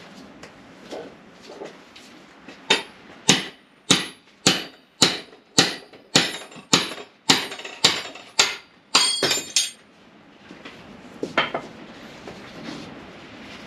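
A hammer strikes the end of a wheel-bearing removal tool's shaft about a dozen times at a steady pace, a little under two blows a second, each a sharp metallic knock with a short ring. This is driving the old wheel bearing out of a motorcycle front wheel hub. The last few blows ring brighter and more metallic, then the hammering stops.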